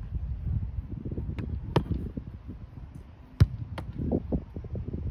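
Sharp thumps of a soccer ball being struck by a foot and caught in goalkeeper gloves, a handful of them, the loudest about three and a half seconds in, over a steady low rumble.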